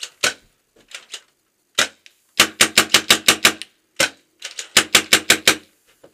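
Paintball marker firing from inside a small wooden bunker: a few single shots, then two rapid strings of shots at about eight a second.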